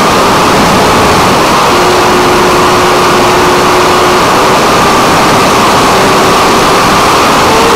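Loud rushing air over the onboard camera of a 6S Funjet electric pusher plane in fast flight, with the steady whine of its brushless motor and propeller running under the wind noise.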